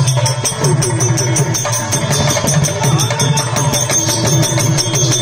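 Live folk-theatre music: a steady, fast percussion beat with a wavering melodic line over it.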